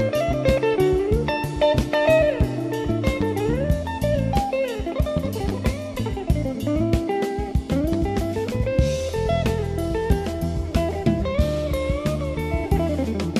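Blues band instrumental break: an electric guitar solo with notes bent and slid up and down, over bass and a drum kit.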